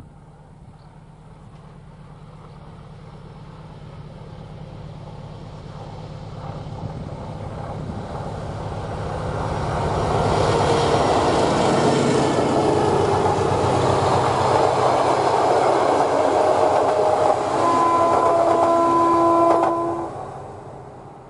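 SM42-series diesel locomotive hauling a passenger train past: its engine hum grows steadily as it approaches and is loud for about ten seconds as the train goes by. A few steady tones sound near the end before the sound falls away sharply.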